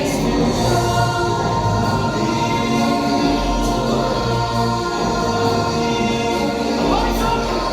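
Music with a choir singing held notes over a steady bass.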